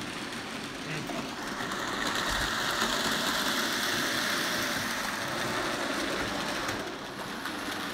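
HO scale model locomotives running on the layout's track: a steady whir of motors and wheels, which grows louder after a second or so and fades back a little near the end.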